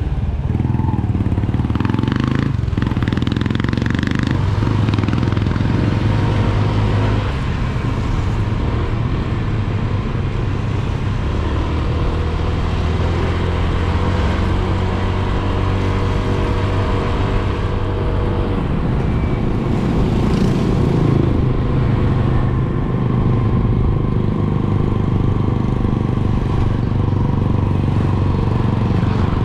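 Motorcycle engine running steadily while riding, its pitch shifting up and down at times with the revs, with brief louder rushes of noise a couple of seconds in and again about two-thirds of the way through.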